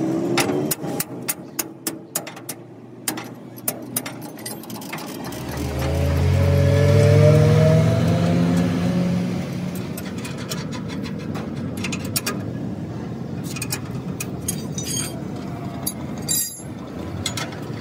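Quick metal clicks and taps from hand tools on a truck's axle fittings, then a vehicle engine rising in pitch and growing loud about six to eight seconds in, easing to a steady hum with scattered clicks.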